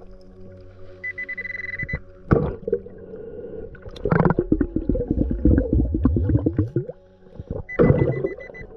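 An underwater metal detector sounds a steady high tone twice, about a second in and again near the end, signalling metal, here a buried wrench that is dug out and held to the coil. In between come bursts of bubbling, crackling underwater noise.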